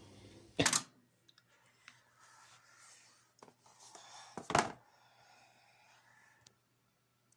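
Two sharp thumps, one about a second in and another a little past the middle, with faint clicks and rustling between them over a low steady hum.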